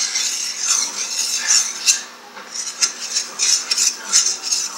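A spoon stirring in a bowl, scraping and clinking irregularly against its sides while cornstarch is mixed into milk.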